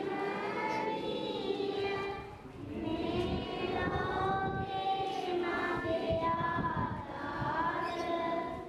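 A crowd of worshippers, mostly women's and children's voices, singing together in long held phrases, with a short dip about two and a half seconds in.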